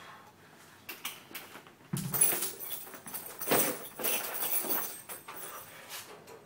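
Irregular knocks and thuds of a lifter moving about and handling gym equipment between sets of chin-ups, the loudest a dull thump about two seconds in.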